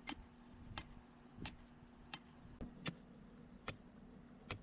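Sledgehammer striking the top of a 5/8-inch copper-clad ground rod to drive it into soft dirt: about eight faint, sharp strikes, unevenly spaced roughly half a second to a second apart.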